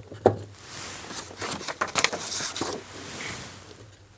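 Handling noise from a paper wall sign as its number card is changed: a rustle of paper or card with scattered light taps and clicks, the rustle thickest in the middle.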